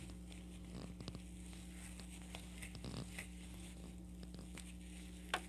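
Faint rustling and light clicks of a crochet hook pulling yarn through while double crochet stitches are worked, with a sharper tick near the end, over a steady low hum.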